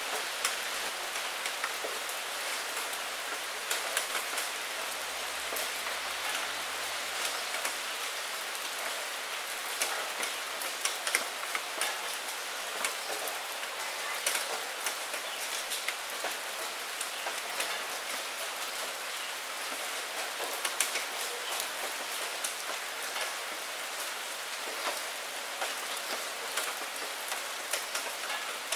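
Steady rain falling on a puddle and wet fallen maple leaves: a constant hiss with many separate, sharper drop splashes scattered through it.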